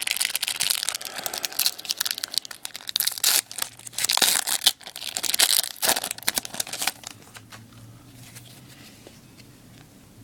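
Plastic wrapper of a hockey card pack being torn open and crinkled, a dense crackling that dies down about seven seconds in.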